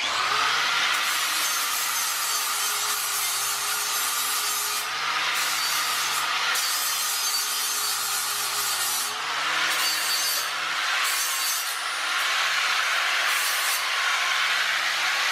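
Corded angle grinder with a cut-off wheel cutting through a steel snow plow cutting edge: a loud, steady grinding hiss over the motor's hum. It starts suddenly at the outset, and the pitch sags a little partway through as the wheel bites harder.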